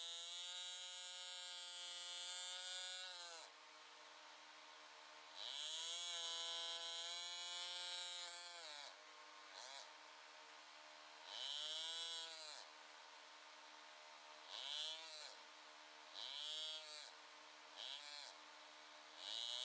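Hand engraver's handpiece buzzing in about seven separate runs as the graver cuts wave patterns into a mild steel sword guard. The pitch rises as each run starts and drops as it stops. The first two runs last about three seconds each, and the later ones are short bursts.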